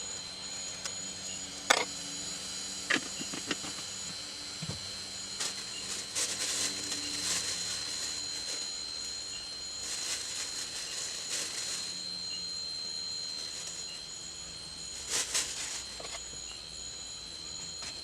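Forest insects calling: a steady high-pitched drone with a second, pulsing insect call above it. Scattered clicks and knocks throughout, the sharpest about two seconds in.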